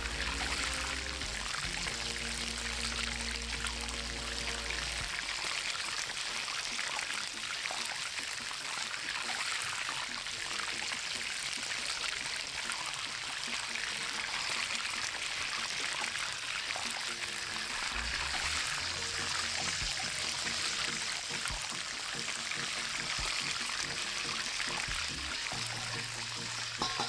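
Hot oil sizzling steadily in a cast iron skillet as a whole chicken fries in it.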